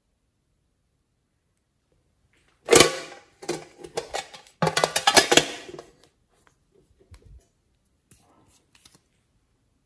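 Small metal tin box being handled, with a lipstick-shaped tube clattering and knocking about inside it and against its sides for about three seconds after a silent start. A few faint clicks follow near the end as the tube is taken out and its cap handled.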